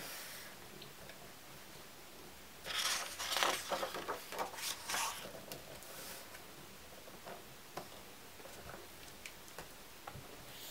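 Stiff pages and endpaper of a hardcover photo album turned by hand: a couple of seconds of paper rustling and sliding, then a few light taps and ticks as the book is closed and handled.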